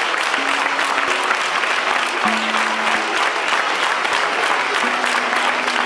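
A crowd applauding steadily, with background music playing held low notes underneath.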